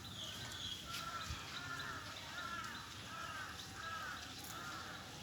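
A crow cawing repeatedly: about six evenly spaced caws, roughly one every two-thirds of a second, starting about a second in.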